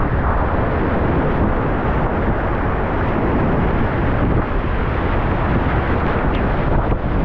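Steady, loud roar of whitewater rapids close to the microphone.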